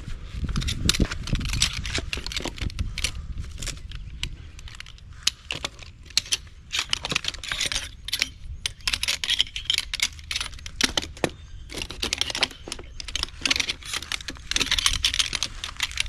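Metal tube legs of a Shine Trip folding camp stool clicking and clattering against each other as the stool is folded up, with rustling of its fabric seat in patches.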